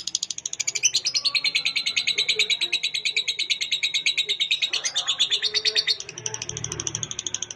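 Lovebird chattering in one long, unbroken trill of rapid high chirps, about a dozen a second, shifting pitch a second in and again near the end.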